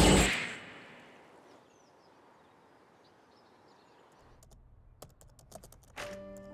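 Keys clicking on a laptop keyboard in short scattered taps from about four and a half seconds in. Before that, a loud rushing noise dies away in the first second and is followed by a near-quiet stretch.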